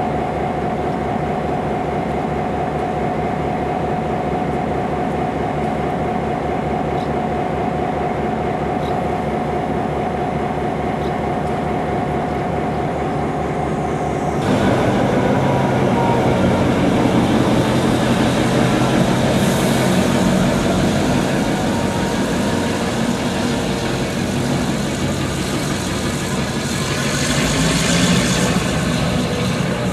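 GM-engined diesel locomotive running, with an even low beat and a steady whine. About halfway through the sound abruptly becomes louder and rougher and stays so.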